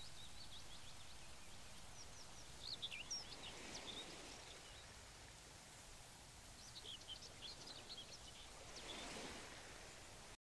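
Faint outdoor ambience: small birds chirping in short scattered bursts over a steady low hiss, with a soft swell of noise near the end. The sound cuts off abruptly just before the end.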